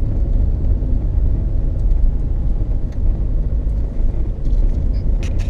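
Tyre road noise heard inside the cabin of a Peugeot 306 2.0 HDi driving along: a steady, loud, low drone from worn Dunlop Sport BluResponse tyres, which the owner suspects comes from tread wear, since the suspension, bearings, balance and alignment have been checked. A few short clicks near the end are rattles from the camera mount.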